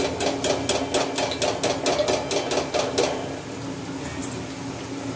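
Steel slotted frying spoon tapped rapidly against metal cookware, about five sharp ringing taps a second, stopping about three seconds in. Hot oil sizzles steadily underneath.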